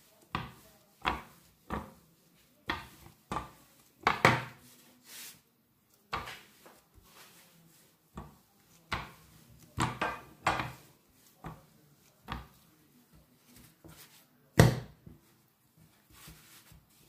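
Rolling pin working dough thin on a countertop: a string of short, irregular knocks and rumbles, roughly one a second, as the pin is pushed back and forth and set down. The loudest knocks come about four seconds in and near fifteen seconds.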